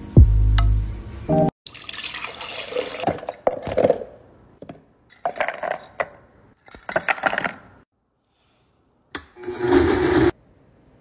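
Frozen fruit chunks tumbling into a blender jar and liquid being poured in, in several separate bursts of rattling and splashing, with a single click shortly before the last burst.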